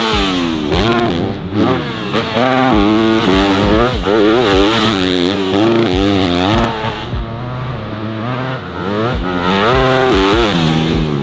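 Motocross dirt bike engine revving up and down while being ridden hard around the track. The pitch climbs and drops again roughly every second as the throttle is worked, with occasional low thumps.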